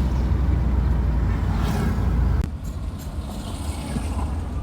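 Steady low rumble of a car on the move, engine and road noise heard from inside the cabin. About halfway through there is a click, and the rumble drops a little quieter.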